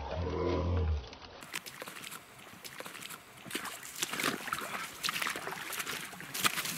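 Footsteps crunching and rustling through dry leaf litter and brush, with many irregular crackles and twig snaps. A brief low pitched sound comes at the very start.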